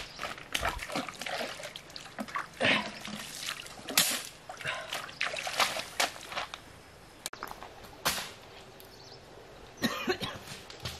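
Irregular splashes and trickling of shallow muddy water as someone wades and works in it.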